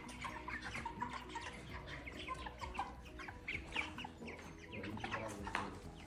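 A flock of young white broiler chickens, about six weeks old, peeping and clucking softly, with many short calls overlapping.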